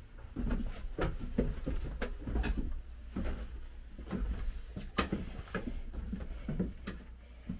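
A run of light knocks and clicks, irregular, two or three a second, over a low steady hum, like objects being handled and set down in a small room.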